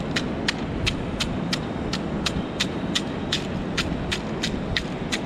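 A hand-held stone knocking repeatedly against a rock-side bed of mussel shells, about three sharp knocks a second, over a steady rushing noise.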